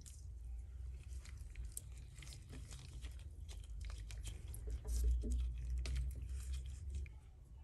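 Raw pork belly strips being worked in a dark garlic marinade: soft wet squelches and many small irregular clicks and crackles, over a low handling rumble that grows louder about five seconds in.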